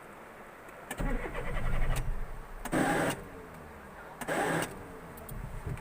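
Car's starter motor cranking the engine for about a second and a half without it catching, then two short bursts of noise about a second and a half apart. The engine will not start because the car's battery has run down.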